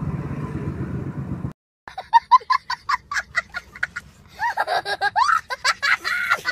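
Motorcycle engine and road noise while riding, cut off about a second and a half in. After a brief gap comes a young child laughing, first in rapid short bursts, then in longer high rising-and-falling laughs.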